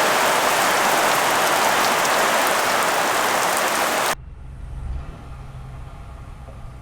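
Steady heavy rain, which cuts off abruptly about four seconds in and gives way to a quieter, low, steady engine hum.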